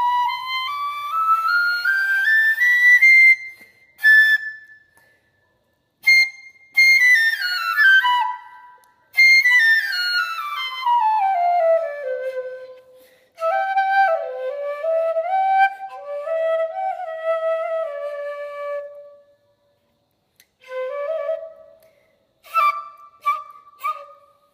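Homemade Vietnamese bamboo flute (sáo) cut from nứa bamboo, being test-played after its holes are burned: a rising scale of stepped notes, a few high notes, a long descending scale, then short melodic phrases with pauses between them.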